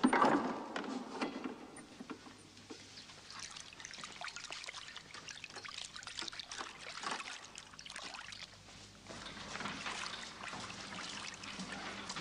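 Small foot-massage hammers tapping on the soles of the feet in a quick, irregular patter of light clicks, strongest at the very start.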